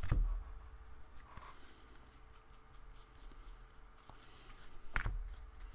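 Soft low thumps and faint rustling as hands handle trading cards on a table: one thump right at the start, another about five seconds in, with a few light ticks in between.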